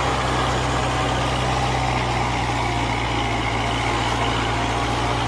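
Kubota 4x4 tractor's diesel engine running steadily under load while it pulls a rotavator through deep ploughed soil.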